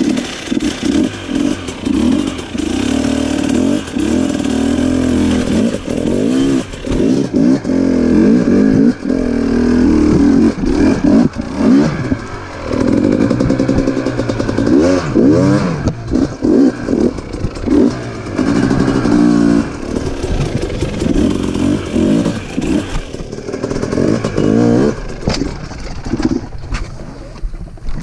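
KTM dirt bike engine revving, rising and falling in pitch with the throttle as the bike climbs a rocky creek bed under load, with the odd clatter of rock.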